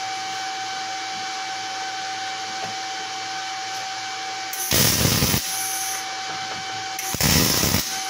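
MIG/MAG welding arc (0.9 mm wire on 3.3 mm steel plate) crackling in two short bursts about two and a half seconds apart, each under a second long, over a steady fan-like hum.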